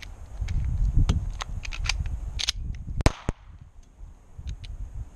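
Taurus PT111 9mm pistol in a reload drill: a run of sharp clicks and clatter from the gun being dry-fired on an empty magazine, the magazine changed and the slide racked, then a single shot about three seconds in, the loudest sound.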